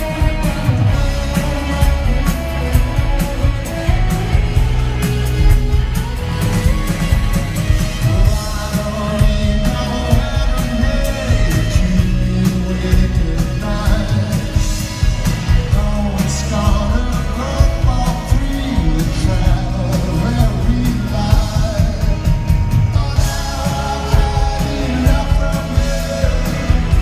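Live rock band playing a song: a male lead singer over electric guitars, drums and keyboards, steady and loud throughout.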